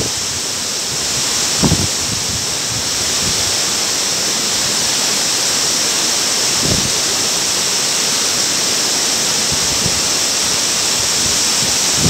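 Steady rushing of a tall waterfall spilling down stepped rock faces in white spray. Two brief low thumps, about two seconds in and again past the middle.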